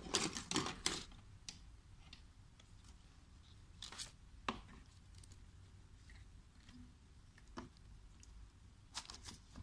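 A few light clicks and knocks from hands handling a circuit board and its power cord, spaced out between stretches of near quiet: a small cluster just after the start, two about four seconds in, one near seven and a half seconds and a few more near the end.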